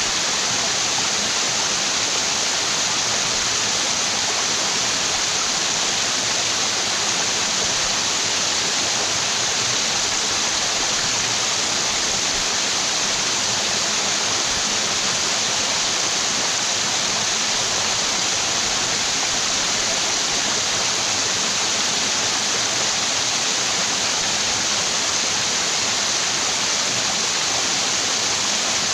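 Waterfall in a mountain stream, a steady, even rush of falling water with a bright hiss.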